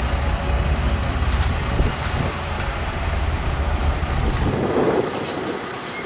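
Diesel engine of a LiuGong B160C crawler bulldozer running, with a strong deep rumble. The rumble falls away about four and a half seconds in.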